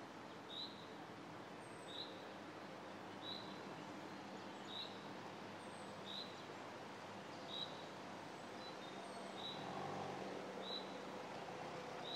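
A bird calling over and over, one short high chirp about every second and a half, over a faint outdoor hiss. A low engine hum from the slowly approaching Mercedes-Benz GLC 300 SUV grows slightly louder near the end.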